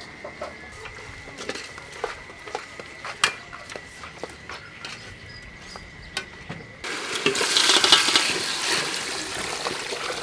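A ladle clicking and knocking lightly against a steel soup pot. About seven seconds in, a louder bubbling of soup at a boil starts suddenly.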